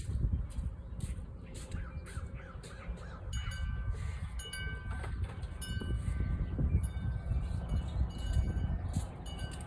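Wire brush scrubbing a spark plug in quick repeated strokes, with high bird calls in the background.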